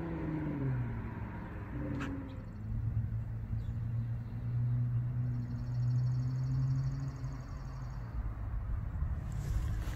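Camaro V6 with a Magnaflow axle-back race-series exhaust heard at a distance: its note falls away after the pass, then holds a steady low drone. A bird chirps in a quick, even run around the middle.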